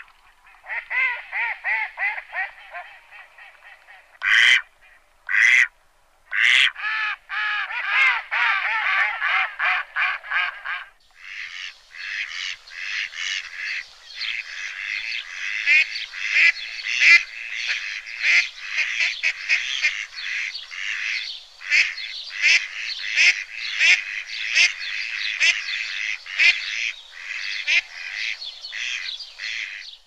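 Mallard ducklings peeping rapidly and continuously, high-pitched and repeated, with a few short louder calls in the first seven seconds. From about eleven seconds in the peeping becomes a denser, busier chorus.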